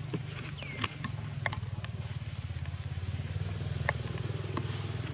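A small engine running steadily, a low pulsing hum, with a few scattered sharp clicks over it.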